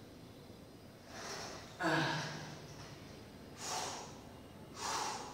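A man's forceful breathing while he works a seated cable row: four short, sharp breaths, one with each pull. The loudest, about two seconds in, has a low voiced start like a grunt.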